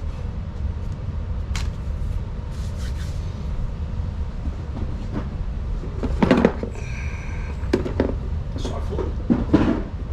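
Small RC differential parts and tools being handled on a workbench: a few scattered clicks and clunks, the loudest about six and nine and a half seconds in, over a steady low hum, with a short high tone about seven seconds in.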